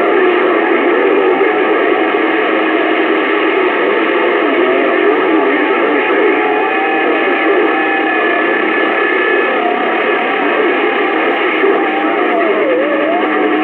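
CB radio receiver audio: steady band static crowded with faint, garbled distant transmissions and wavering whistles of stations beating against each other.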